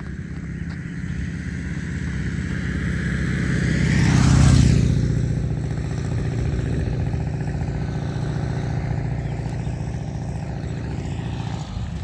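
A motor vehicle driving past on the road: its engine hum and a brief rush swell to their loudest about four and a half seconds in with a falling pitch, then fade slowly, and the engine hum carries on until near the end.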